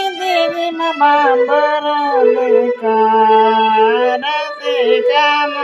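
A man singing a Santhali song in long, wavering held notes, accompanied by a Casio electronic keyboard holding a sustained note underneath.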